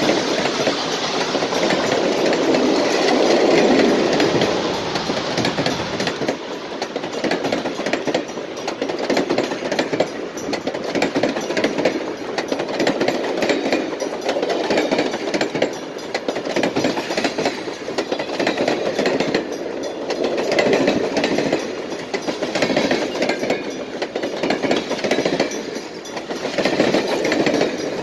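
Passenger coaches rolling past at close range: a steady rumble of steel wheels on rail, swelling and easing every few seconds as each car's wheel sets go by.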